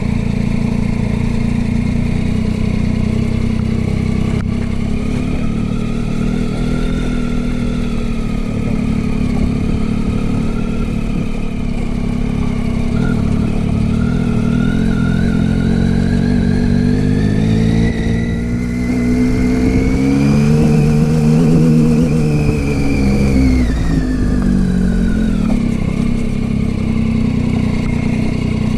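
Motorcycle engine running under way. Its pitch climbs steadily as it speeds up about halfway through, then drops back as it eases off near the end.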